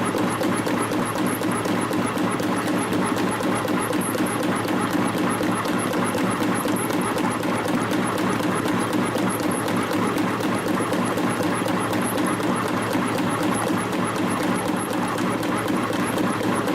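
CNC compression spring coiling machine running steadily, feeding and coiling 1.4 mm wire into springs with a fast, even beat of about four cycles a second, one spring per cycle at around 250 springs a minute.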